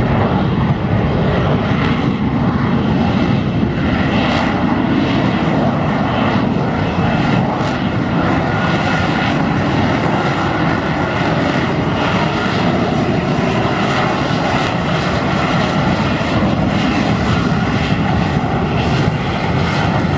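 Loud, steady engine noise of military aircraft flying past.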